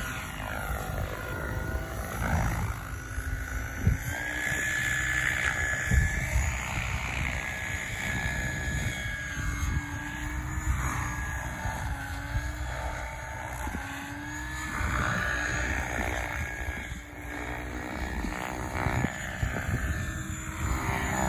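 SAB Kraken 700 electric RC helicopter flying 3D aerobatics: the whine and whoosh of its main and tail rotors rise and fall in pitch over and over as it swoops and changes load.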